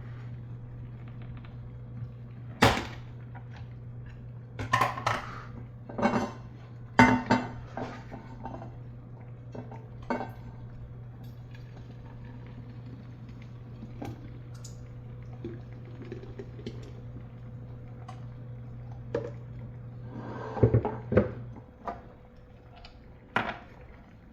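Kitchen clatter of pots, lids and utensils clinking and knocking, in a handful of separate bursts, over a steady low hum that cuts off near the end.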